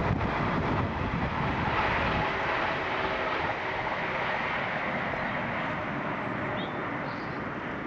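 Wind buffeting the microphone over a steady low rumble, the buffeting strongest in the first two seconds.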